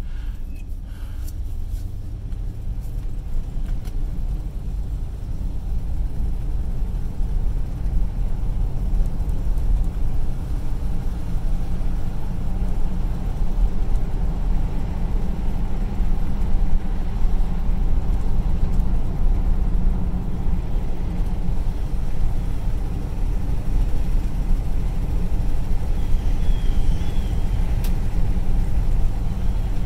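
Inside the cabin of a 1976 Cadillac Sedan DeVille with its 500 cubic inch V8, driving along a road: a steady low engine and road rumble that grows louder over the first half as the car picks up speed.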